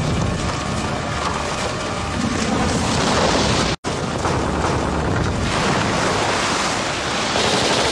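Loud, dense rumble and noise of an action-film sound mix with music underneath, cutting out completely for a split second near the middle.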